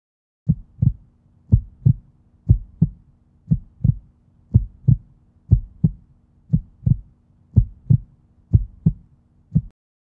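Heartbeat sound effect: steady paired low thumps, lub-dub, about one beat a second. It starts about half a second in and stops near the end.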